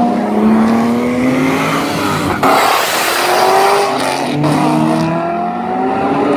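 Supercar engines accelerating hard up the street, pitch climbing in each gear and dropping back at the upshifts, with more than one car heard at once. Two sharp cracks cut in, about two and a half and four and a half seconds in.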